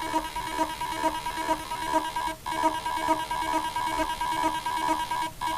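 Hard drive buzzing on power-up: a steady high-pitched tone with a rapid pulsing of about four beats a second, broken twice by short gaps. The spindle motor is trying and failing to spin the platters because the read/write heads are stuck on the disk.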